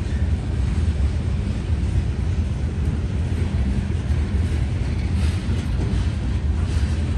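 Covered hopper cars of a Norfolk Southern freight train rolling over a grade crossing: a steady, low rumble of steel wheels on rail, with some sharper clatter about five to seven seconds in.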